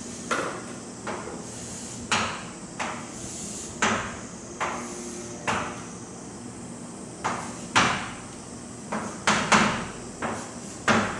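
Writing strokes on a board as a circuit diagram is drawn: about a dozen short scraping knocks at uneven intervals, each quick to start and fading fast.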